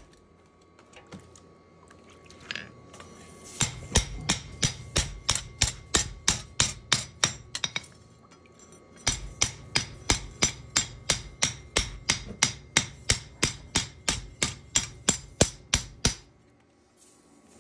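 Hammer blows on steel as a knife blade is forged, in two runs of quick, evenly spaced strikes, about four a second, with a short break between them.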